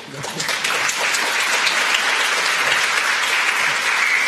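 Audience applauding, building up over the first second and then holding steady.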